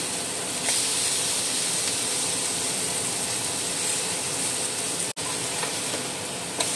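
Oil sizzling steadily around kingfish slices shallow-frying in a pan, some coated in masala and some in rava, with a couple of faint clicks from the metal spatula turning them. The hiss cuts out for an instant about five seconds in.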